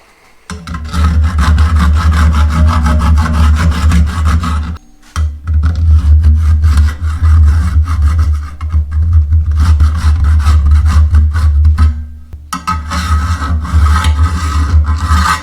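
A power tool running under load against the metal mount bracket, giving a steady low hum with a harsh rasping scrape. It stops briefly about five seconds in and dips again about twelve seconds in.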